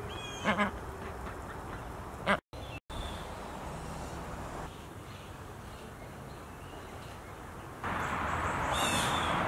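Duck quacking in short calls, twice within the first second and once more a little after two seconds. Steady outdoor background noise follows and gets louder near the end.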